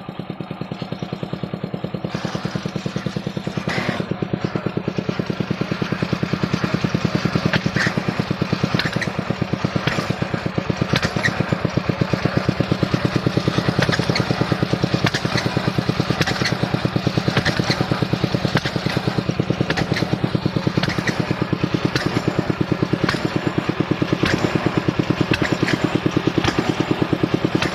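Engine of a core drilling rig running steadily with a rapid, even pulsing, with scattered short clicks and clanks over it.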